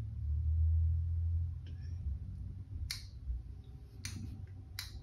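Ibanez RG7421 seven-string electric guitar being handled and its strings touched: a low hum fades over the first second and a half, then a few sharp clicks follow.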